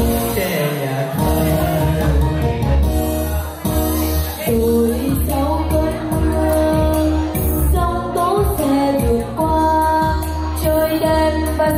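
Singing of a Vietnamese love song over backing music with a steady beat.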